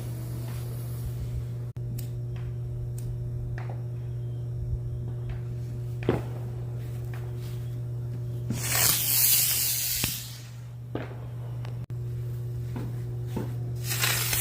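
Fireworks hissing in two loud bursts of about a second and a half each, with a few sharp pops between them, over a steady low hum.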